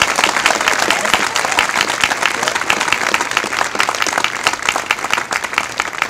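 Crowd applauding: many hands clapping densely and unevenly, thinning out near the end.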